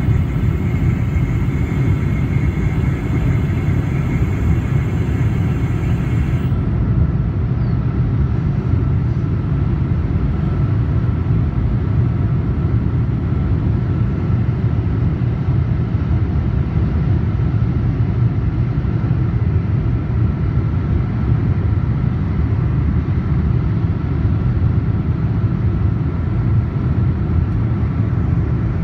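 Steady low rumble of a Boeing 777-200's engines and the airflow over its wing, heard inside the cabin on approach with flaps and slats extended. A faint higher hiss above it cuts off about six seconds in.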